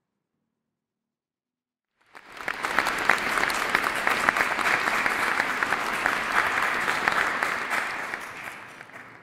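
Audience applauding: dead silence for about two seconds, then clapping that rises quickly, holds steady and fades away near the end.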